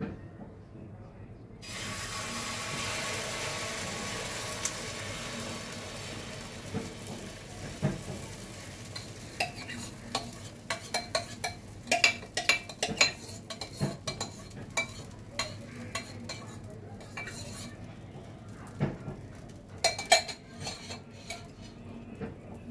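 Egg and crushed-chip omelette batter poured onto a hot pan and sizzling, the sizzle starting suddenly and easing off over several seconds. Then a steel spatula repeatedly scrapes and taps on the pan as the omelette is spread and turned.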